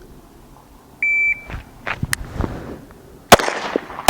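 A shot timer gives one short beep about a second in, followed by a few faint clicks of the draw. A Smith & Wesson M&P 2.0 pistol then fires once near the end, with a second shot just as it ends.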